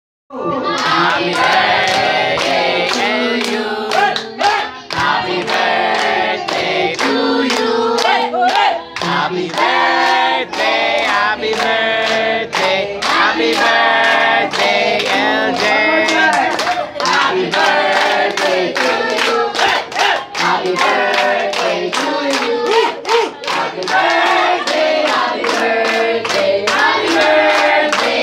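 Group singing with music, with hands clapping in time at about two claps a second.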